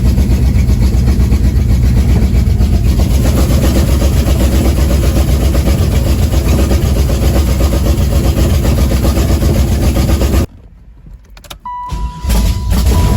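Car engine running loud with a dense low pulsing, cutting off abruptly about ten and a half seconds in. Near the end a steady high beep sounds on and off.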